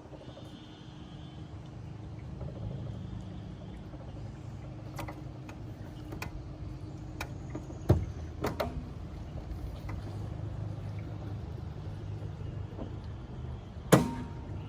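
Flatboat's outboard motor running with a steady low drone, broken by a few sharp knocks. The loudest knocks come about eight seconds in and near the end.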